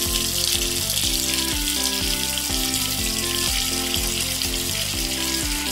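Water running from a toy doll bathtub's faucet as the tub is filled: a steady hiss, with background music underneath.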